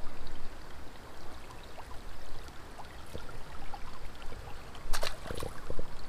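Steady wash of a shallow creek flowing, with a short sharp noise about five seconds in followed by a few light clicks.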